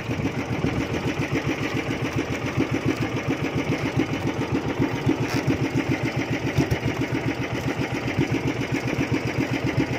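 Small fishing bangka's engine running steadily, an even chugging pulse of about five beats a second.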